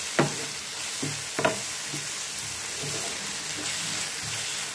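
Chopped onion and tomato sizzling in oil in a nonstick pan, stirred with a wooden spatula in repeated strokes. Two sharper knocks of the spatula against the pan come about a quarter second and a second and a half in.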